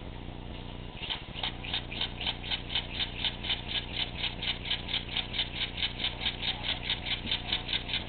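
Small model steam engine starting up about a second in and running steadily with even exhaust puffs, about five a second, over a low steady hum, while it drives a small generator.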